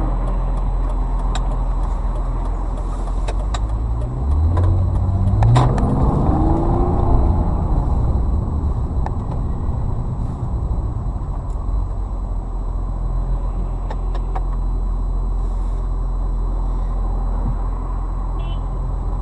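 Car engine running steadily, rising in pitch and getting louder from about four to seven seconds in as the car accelerates, then settling back; a sharp knock comes about five and a half seconds in.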